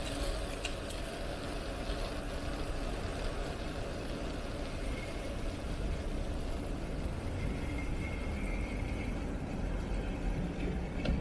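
Steady rush of wind on the microphone and rolling tyre noise from a bicycle ride, with a faint high tone coming and going in the middle.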